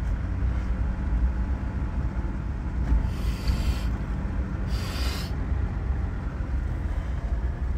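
Vehicle engine and road noise heard from inside the cabin, a steady low rumble as it drives slowly. Two short hisses come about three and five seconds in.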